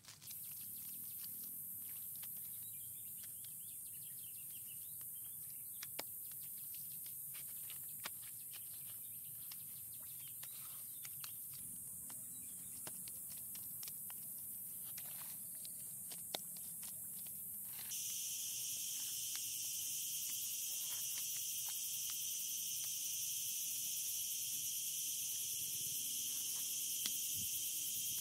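A steady, high-pitched outdoor insect chorus drones throughout. About two-thirds of the way through it shifts to a lower, two-toned drone. Faint scattered clicks and soft slaps come from wet mud plaster being pressed and smoothed onto a wall by hand.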